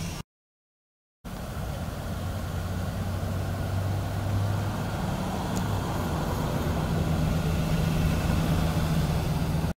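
About a second of dead silence near the start, then an engine idling steadily with a low, even hum, which cuts off abruptly near the end.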